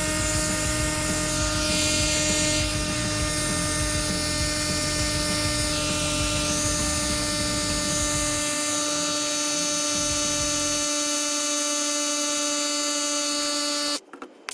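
Electric air compressor inflating an ATV tire, its motor running with a steady, even hum, then cutting off abruptly near the end.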